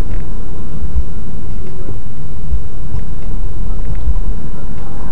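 Loud, steady low rumble of vehicle engine and road noise.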